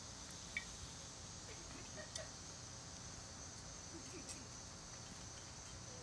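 Faint, steady chirring of crickets, with a couple of small clicks.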